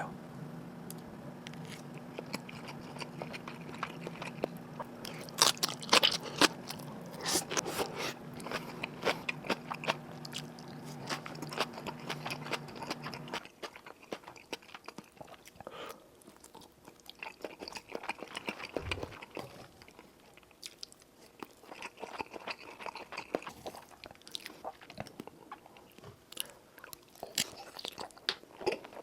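Close-miked eating: crisp biting and chewing of a simple home meal of Spam, fried egg and kimchi, with wet crunches and mouth clicks. A low steady hum runs under the first half and stops about halfway through.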